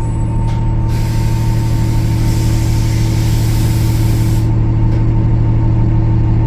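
Cummins ISL9 diesel engine of a Gillig Low Floor transit bus running steadily with a low hum. A hiss of air starts about a second in and cuts off sharply some three and a half seconds later.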